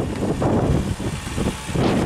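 Kawasaki Balius-II's stock exhaust with its 250 cc inline-four running steadily at idle, a dense low rumble, with wind buffeting the microphone.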